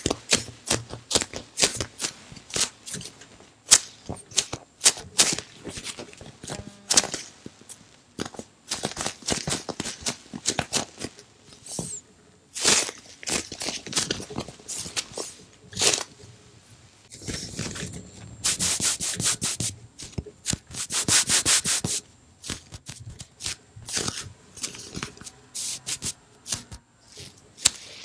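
Giant bread-slice-shaped polyurethane foam squishy being squeezed, bent and rubbed close to the microphone: quick crackling scratches of fingers on its textured skin, with a few longer, louder stretches of rubbing about two-thirds through.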